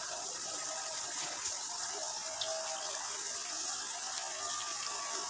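Jaggery and semolina halwa sizzling in ghee in a karahi: a steady hiss.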